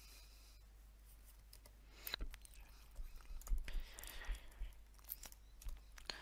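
Computer keyboard and mouse clicks: a scattered run of sharp clicks starting about two seconds in, while code is copied and pasted.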